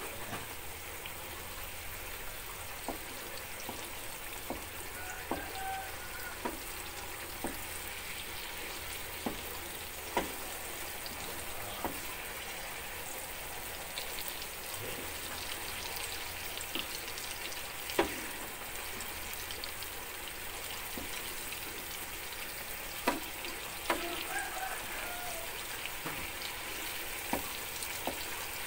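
Ground spice paste sizzling steadily as it fries in oil in a small pan. A few sharp taps of the spatula against the pan stand out, the loudest about 18 seconds in.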